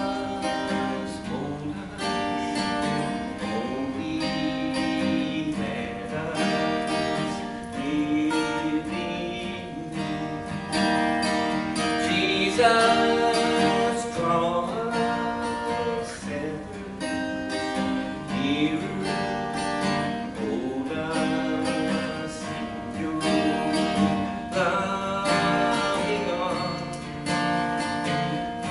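Gospel song with acoustic guitar strumming and a voice singing in places.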